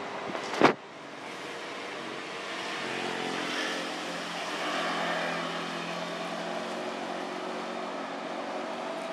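Motor vehicle engine running in the background, a steady hum that swells a little about four seconds in. A single sharp click about half a second in is the loudest sound.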